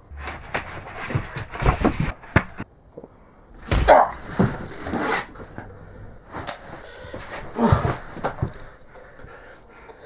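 Scuffling in three loud bursts, with wordless grunting and cries among the noise.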